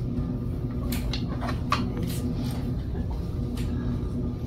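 Electric potter's wheel running with a steady low hum, with a few short clicks about one to two seconds in as the clay is worked.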